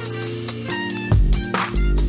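Electronic background music: sustained chords over deep bass hits, with sharp drum strikes about every half second.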